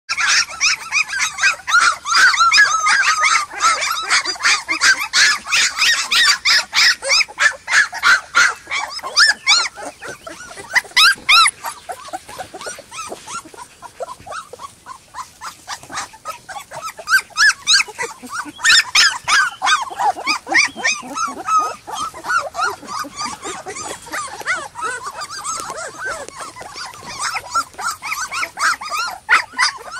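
A litter of three-week-old American Molossus puppies whining and yelping, many short high-pitched calls overlapping, with a quieter spell in the middle.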